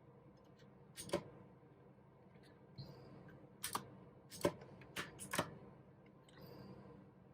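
A few scattered keystrokes on a mechanical keyboard with clicky blue switches, about six in all, with pauses between them and a small cluster near the middle.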